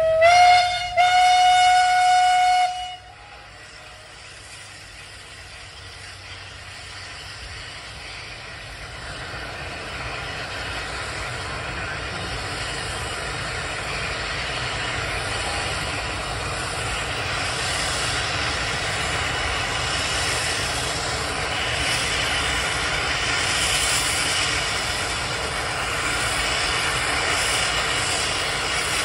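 A steam whistle blows one blast of about three seconds, rising slightly in pitch as it opens. Then a steam engine's exhaust hisses and grows gradually louder as the engine works, with rhythmic puffs in the later part.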